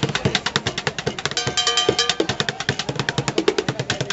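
Street drumming on buckets: a fast, dense run of hits in a steady rhythm. About one and a half seconds in, a ringing metallic tone sounds for about half a second over the beat.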